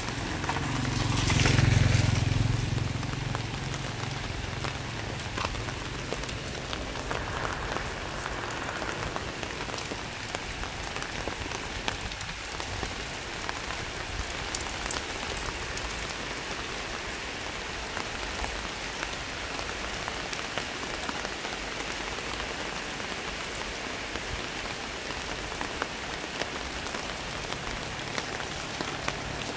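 Light drizzle pattering steadily on surfaces. About two seconds in, a low rumble swells and fades away.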